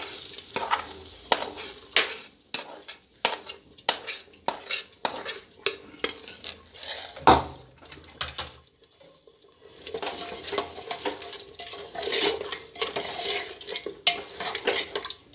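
A metal spatula scrapes and knocks repeatedly against the pan and the pressure cooker's rim as thick fried masala is pushed into the cooker. After a brief pause a little past halfway, the masala and mutton sizzle in oil while being stirred, with the spoon clicking against the sides of the cooker.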